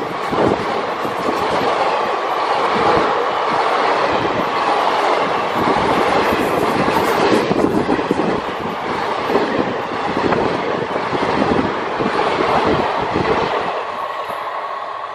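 Express train's passenger coaches passing close at speed: a steady rumble of steel wheels on rail with rapid clatter over the rail joints, fading near the end as the last coach runs away.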